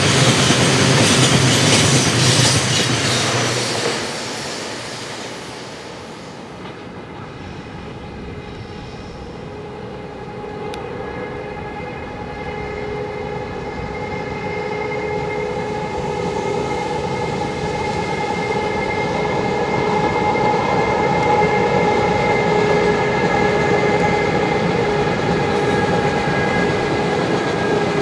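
Freight train tank wagons rolling past close by with a loud, steady rush that drops away about four seconds in. Then a JR Freight EH500 electric locomotive hauling a freight train approaches, its traction motors giving a steady whine of several pitches over the rumble of the wagons, growing louder.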